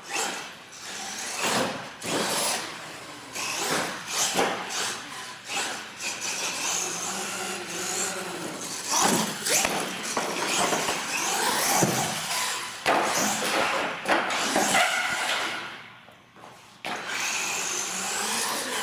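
Radio-controlled monster trucks running on a concrete floor: electric motors and gears whining as they rev up and down, with tyre hiss. A few sharp knocks come from the trucks hitting ramps or the floor. The sound dips away briefly near the end.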